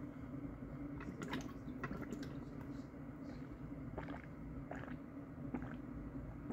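Sipping a drink through a straw from a plastic cup: scattered small clicks and mouth sounds, a cluster about a second in and more around four to five seconds in, over a steady low hum.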